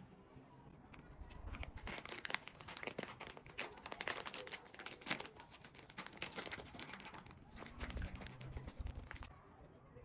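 A thin plastic bag crinkling and rustling as it is handled and tipped, a dense, irregular stream of crackles that stops suddenly just after nine seconds.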